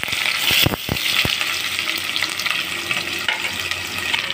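Sliced onions and green chillies hitting hot oil in an enamel pot and sizzling steadily, with a few sharp clicks in the first second or so as they are tipped in.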